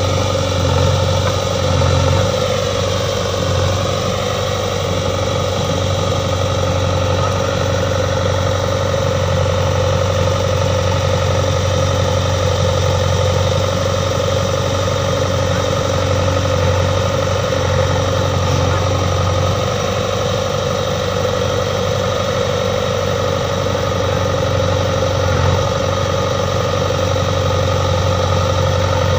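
JCB 3DX backhoe loader's diesel engine running steadily while the backhoe arm digs and dumps soil.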